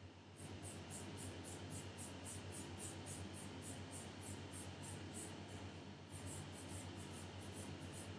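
A fine nail-art brush dabbing a snow-effect gel onto a plastic nail tip: faint, quick scratchy taps, about three or four a second, with a short break about six seconds in, over a low steady hum.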